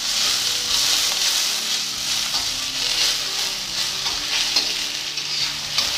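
Garlic chives and red chilli strips sizzling in hot oil in a wok, stirred with a spatula that scrapes the pan now and then.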